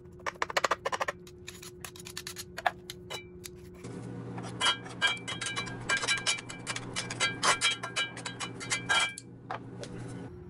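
Kitchen utensils tapping and clinking against cookware: quick taps early on, then from about four seconds in a dense run of ringing clinks that stops shortly before the end.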